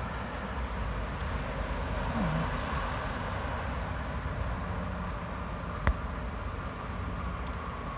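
Steady low rumble of distant vehicles, with one sharp click about six seconds in.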